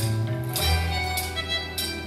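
Instrumental music with a steady beat, a strike roughly every 0.6 seconds, over held notes and a bass line.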